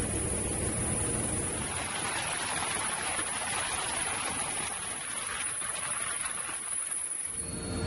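Z-8 helicopter heard from its open cabin door while hovering for a winch hoist: a steady rush of rotor wash and engine noise with a constant thin high-pitched whine. The sound changes shortly before the end.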